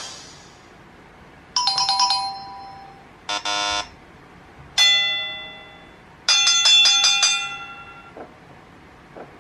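Short sound effects played one after another from a smartphone sound-effects app: a quick run of chime notes, a brief buzzer tone, a single bell ding that rings out, then a rapid string of bright bell chimes. A few faint taps follow near the end.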